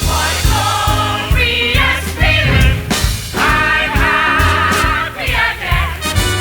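Musical-theatre song: voices singing together over band accompaniment with a steady bass beat.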